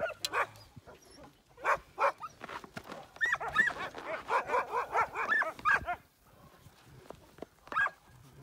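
A pack of harnessed sled dogs barking and yelping at a polar bear they hold at bay, in quick runs of calls, with a lull about six seconds in before a last bark.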